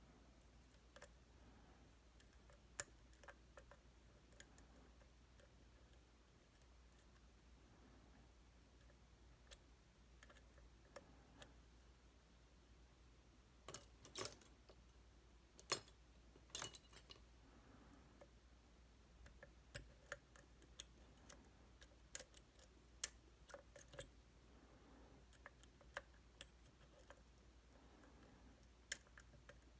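Faint, scattered metallic clicks and taps of lock-picking tools working inside a Titan T250 dimple lock, with a few louder clicks a little past the middle.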